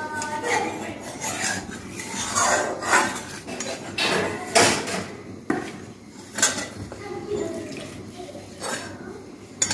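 A utensil scraping and clinking in a metal kadhai in irregular strokes, as leftover masala is scraped out with a little water.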